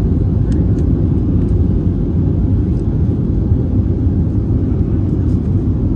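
Steady low rumble inside the cabin of a Boeing 737-800 as it rolls along the ground after landing.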